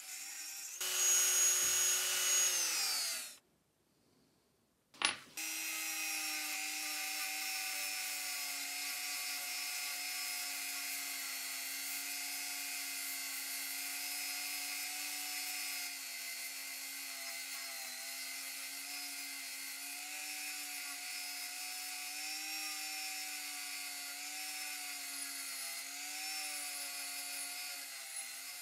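Handheld rotary tool whining steadily as a small sanding drum cleans rust off a small steel saw part, its pitch dipping slightly now and then as the bit bears on the metal. Near the start a louder run winds down and stops; after a short silence a click comes, and the tool runs again.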